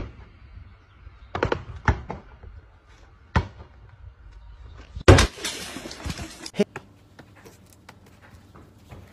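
A handful of sharp knocks and thuds, the loudest about five seconds in, followed by a second or so of rushing noise and one more knock.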